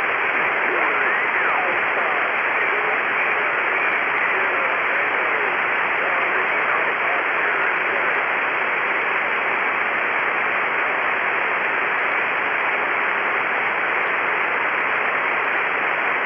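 Upper-sideband receiver hiss from an Icom IC-7300 tuned to the AO-7 satellite's 10-metre downlink near 29.449 MHz. Faint whistles waver and drift in pitch through the steady hiss.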